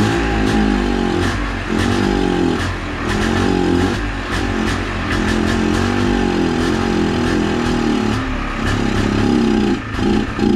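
Polaris Trail Blazer's two-stroke single-cylinder engine running and being revved up and down, its pitch rising and falling. Near the end it is blipped in short, even pulses about twice a second.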